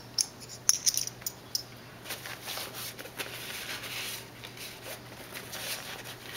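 Small hard items clicking and tapping against each other as they are handled, then a few seconds of scratchy rubbing and rustling as the bag is handled.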